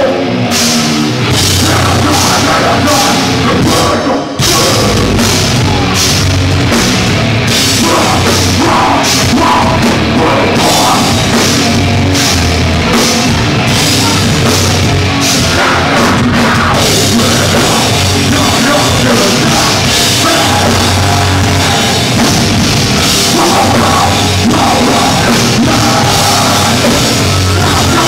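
Live band playing loud heavy rock with a drum kit, with a brief break about four seconds in.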